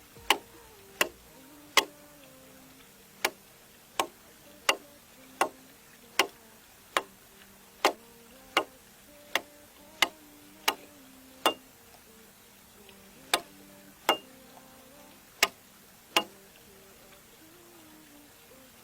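A run of about twenty sharp knocks at a steady pace of roughly one every three-quarters of a second, like a hand tool striking wood. The knocks pause briefly twice late on and stop a couple of seconds before the end.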